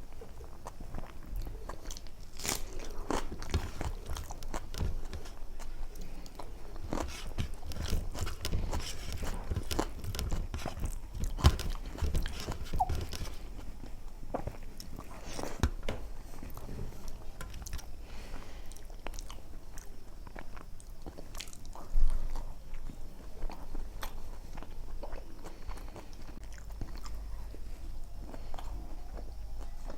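Close-miked eating: chewing and biting with many irregular wet mouth clicks and small crunches, busier in the first half. Two sharper, louder knocks stand out, about a third and two thirds of the way through.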